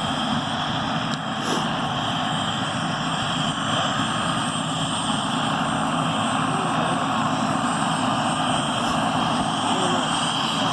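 Turbine helicopter running steadily, a high turbine whine over the rotor noise.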